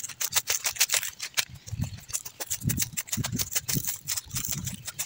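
Footsteps walking on a dirt path covered in dry leaves: regular soft thuds, with dry leaves crunching and crackling underfoot.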